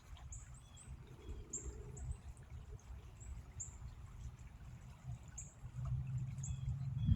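Small birds chirping with short, very high notes, about one or two a second, over a low rumble.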